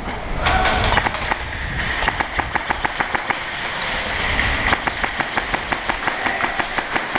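Airsoft guns firing in quick succession: a fast string of sharp cracks, about five or six a second by the end, in a concrete bunker.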